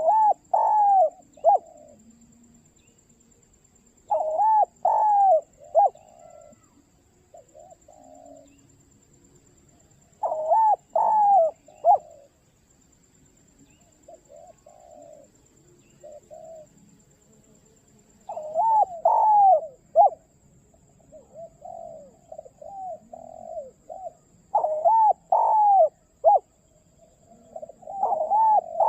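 Spotted dove (tekukur) calling with its clear 'mersik' coo: six loud phrases of several coos each, coming every four to eight seconds, with softer single coos between them.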